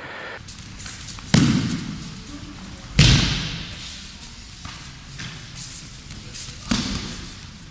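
Three heavy thuds of aikido partners being thrown and landing on the tatami mats: one about a second and a half in, the loudest at about three seconds, and one near the end, each echoing in the large hall.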